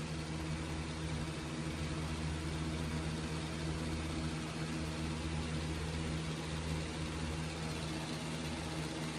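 Steady low hum of the BMW 335i's turbocharged inline-six idling, heard from inside the cabin.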